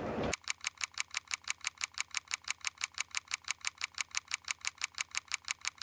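Film projector clicking sound effect: rapid, even clicks at about six a second, starting abruptly just after the start.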